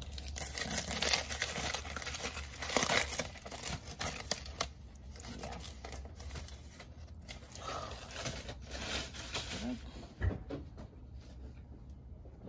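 Aluminium foil crinkling and rustling as a foil-wrapped sandwich is unwrapped by hand, loudest in the first few seconds and softer after. A short knock comes about ten seconds in.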